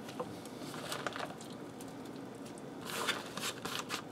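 Wooden spoon stirring a thick cream sauce in an enamelled cast iron skillet, with soft scrapes and squishes. About three seconds in comes a short run of light clicks and rustles as shredded Swiss cheese is tipped in from a plate.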